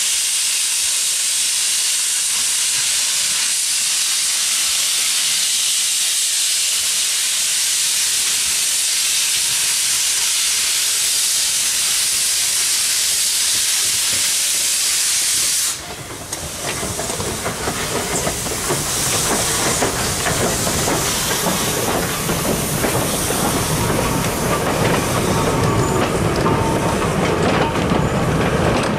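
Steam hissing steadily from the A1X 'Terrier' tank locomotive. It cuts off abruptly about sixteen seconds in. Goods wagons then roll slowly past, rumbling, with a run of clicks from their wheels on the rails.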